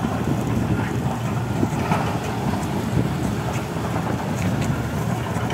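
Steady low rumble of a tracked hydraulic excavator's diesel engine working at the water's edge, mixed with wind on the microphone and small waves washing in.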